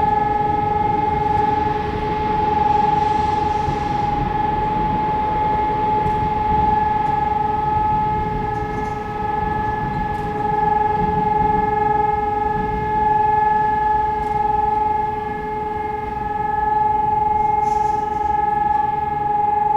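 Hörmann ECN electronic civil-defence siren sounding a loud, steady tone at one unchanging pitch: the one-minute steady signal that opens the nationwide test alarm.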